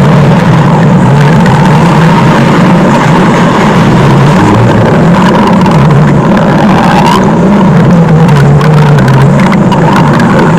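Cartoon stomach-growl sound effect: a loud, continuous low rumbling growl whose pitch wavers slowly up and down.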